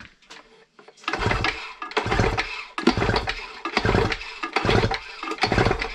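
Neuson BS60Y rammer's two-stroke engine cranked by hand with its pull-starter, six pulls about one a second, turning over without firing with the plug out for a compression test. The test gives about 100 psi, good compression.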